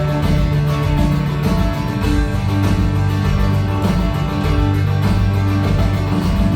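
Instrumental passage of a worship song: strummed acoustic guitar with sustained bass and keyboard-like held chords, no singing.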